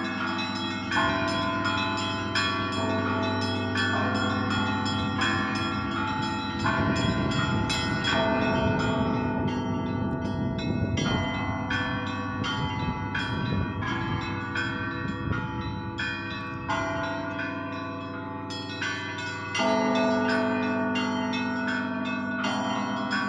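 Russian Orthodox monastery bells ringing: smaller bells struck in quick, rhythmic patterns over the sustained hum of deeper bells, with a louder stroke now and then.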